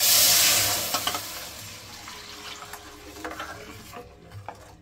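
Curd-and-gram-flour kadhi batter poured into hot ghee tempering in a steel kadhai: a sudden loud rush and sizzle of liquid hitting the hot pan that fades over about two seconds. Then a spoon stirring in the pan, with a few light knocks.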